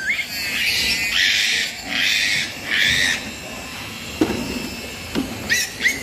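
A piglet squealing in loud, harsh bursts, four in the first three seconds, as it is held and handled. Two knocks follow, and another squeal starts near the end.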